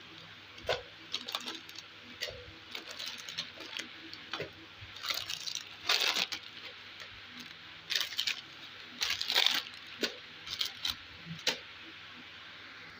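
Crinkly plastic snack packets rustling and crackling as they are handled and dropped into a glass bowl, in irregular bursts, the loudest about six and nine seconds in.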